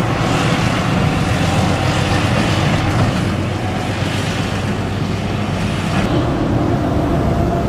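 Diesel engine of a large Fendt farm tractor running steadily under load while it pulls a loaded silage trailer, with the trailer's running gear rumbling. The sound shifts about six seconds in.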